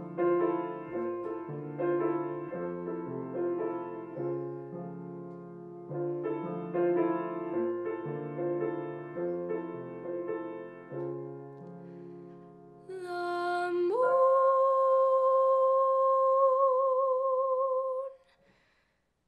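Piano playing a slow chordal introduction with a moving bass line. About thirteen seconds in, the piano drops away and a young woman's solo voice enters, sliding up into one long sustained note with vibrato that she holds for about four seconds.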